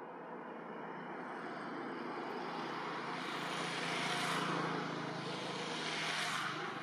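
Engine noise of a passing motor vehicle, swelling steadily louder and loudest about four and again about six seconds in.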